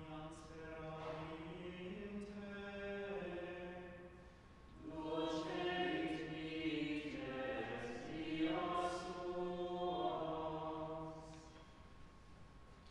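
Latin liturgical chant sung in long, slow melodic phrases, with a short break about four seconds in, dying away near the end.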